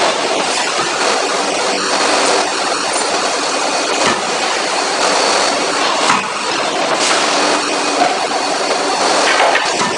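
CNC forging hammer and forge-shop machinery running with a steady loud din, with a few sharp knocks scattered through as a hot workpiece is worked at the dies.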